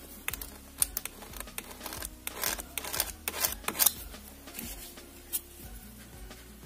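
Nail-stamping tools being worked on a metal stamping plate: short scraping strokes across the plate and light clicks and taps. The strokes are thickest between about two and four seconds in.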